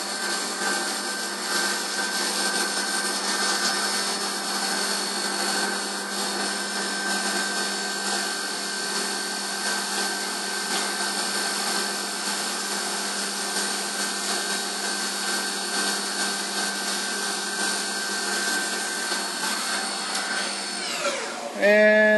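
CNC milling machine spindle running a spot drill to cut a chamfer around the edge of the part: a steady whine made of several tones. Near the end the tones all fall in pitch as the spindle winds down at the end of the operation.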